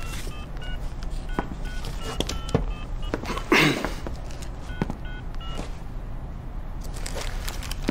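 Mobile phone keypad beeps as a number is dialled: about a dozen short electronic tones in two quick runs. A brief, louder swish comes about three and a half seconds in.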